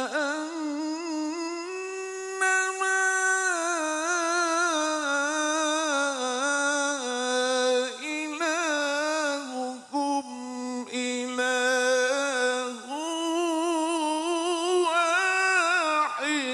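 A man recites the Quran into a microphone in the melodic tilawah style, one voice drawing out long notes with wavering, ornamented pitch and brief pauses for breath. The phrase breaks off near the end.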